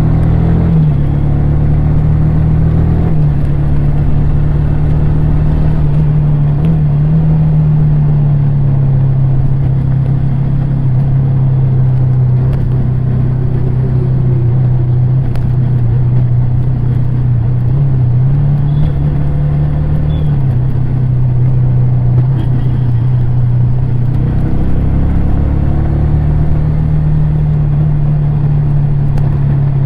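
Yamaha R15 V3's 155 cc single-cylinder engine running under way at fairly steady revs, its exhaust note with wind and road noise, dipping briefly a few times as the throttle eases.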